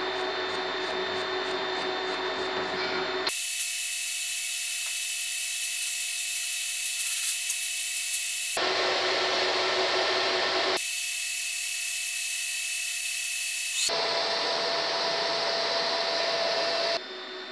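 Steady hiss of a TIG welding arc building up a worn journal on a BMW M30 camshaft. The sound changes abruptly every few seconds, between a thin high hiss with a faint steady tone and a fuller rushing noise.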